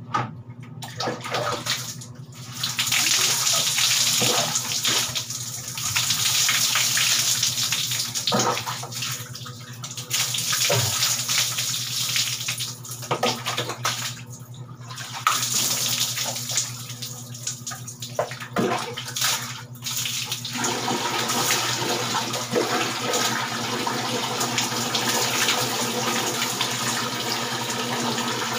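Water splashing over a person bathing, in loud bursts with short pauses between them, as water is poured over the body. About two-thirds of the way through it turns into a steady, continuous run of water.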